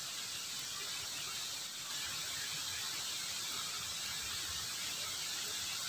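Steady hiss of muddy water flowing along a shallow drainage ditch.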